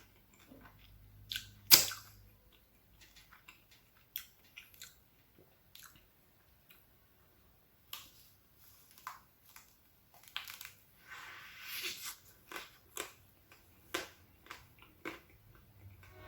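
Biting and chewing crispy chocolate monaka ice cream: the wafer shell and crispy chocolate crunch in scattered crackles. A loud crack of a bite comes near the start, and a denser run of crunching comes about two-thirds of the way through.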